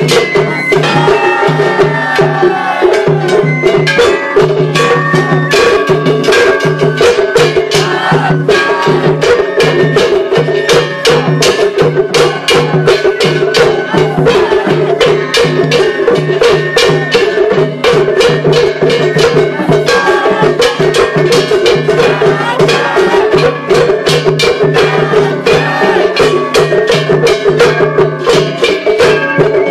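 Japanese festival hayashi from a float: taiko drums struck rapidly and hard with sticks in a dense, continuous rhythm, with steady pitched tones running underneath.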